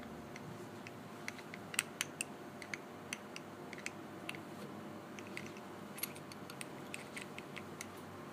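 Small, irregular metal clicks and taps of an Allen key working the screws of a Kovix KD6 disc lock's locking mechanism.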